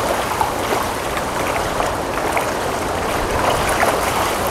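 Hatchery-raised juvenile steelhead trout splashing at the surface of a crowded raceway as they take feed pellets: a steady churning of water broken by many quick, small splashes.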